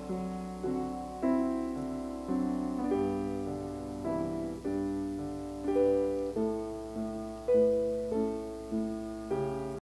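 Piano playing a slow invitation hymn: chords struck one after another and left to ring, with the melody moving note by note. It cuts off abruptly at the end.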